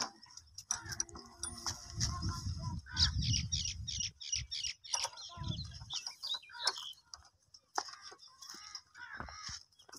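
Birds calling: a quick run of short, high, falling chirps about three to five seconds in, with other calls scattered through. A low rumble runs underneath for a couple of seconds, and there are a few sharp clicks.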